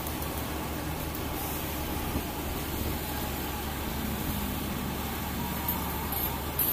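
Kobelco mini excavator's diesel engine running steadily as the machine digs and swings its bucket of soil.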